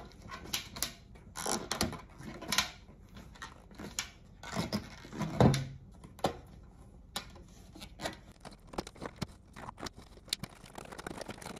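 Handling noise of a rubber tire inner tube being stretched and worked around a stainless steel pot's rim and handles: irregular rubbing, scuffing and light knocks on the metal, with one sharper thump about five and a half seconds in.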